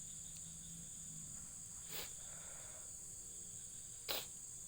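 A steady, high-pitched chorus of insects such as crickets trilling in the background. Two short sharp knocks cut across it, one about two seconds in and a louder one near the end.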